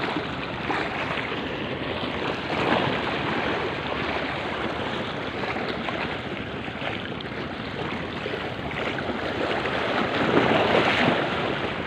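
Small sea waves washing against the boulders of a rock breakwater, with wind on the microphone; the wash swells about three seconds in and again near the end.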